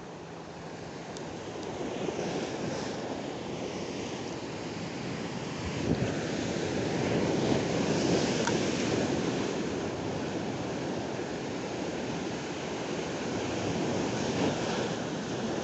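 Ocean surf breaking and washing over rocks, a continuous rush that swells loudest in the middle, with wind buffeting the microphone. A brief thump about six seconds in.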